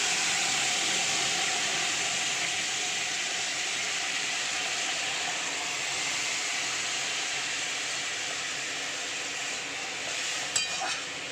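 Jute mallow curry cooking in a hot kadai with a loud, steady sizzling hiss that slowly eases. A few light clinks come near the end.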